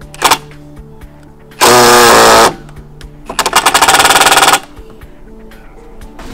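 Ryobi 18V One+ brushless impact driver driving a fastener into a wooden post: a short trigger blip, a steady run of just under a second, then over a second of rapid impact hammering that grows louder as the fastener seats, then stops.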